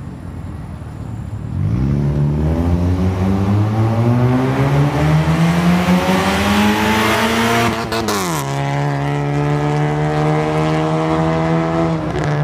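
Honda Stream RSZ with a custom stainless-steel downpipe and full stainless exhaust, accelerating hard. The engine note climbs steadily for about six seconds, falls sharply about eight seconds in, then settles into a steady drone.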